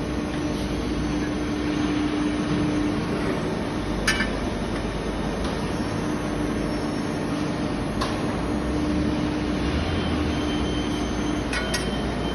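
CNC press brake running through sheet-metal bending: a steady machine hum with a pitched drone that fades out and comes back, and a few sharp metallic clicks about four, eight and twelve seconds in.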